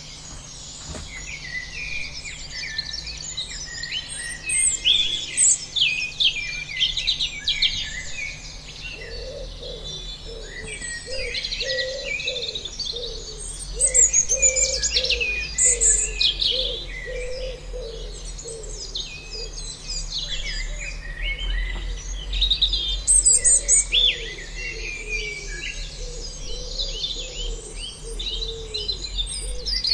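Many small birds chirping in a busy chorus of short, overlapping calls. A lower call starts repeating steadily about a third of the way in.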